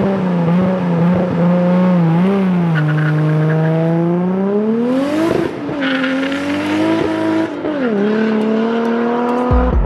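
Toyota Supra MKIV's single-turbo 2JZ inline-six running hard, its pitch climbing to a peak about five seconds in, then dropping, with another dip and rise near eight seconds. Music with a drum beat starts right at the end.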